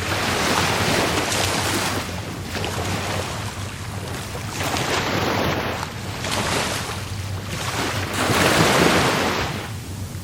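Rough Caribbean Sea surf: waves breaking and washing up the shore in repeated surges that swell and fade, the loudest about two-thirds of the way through, over a steady low rumble of the sea.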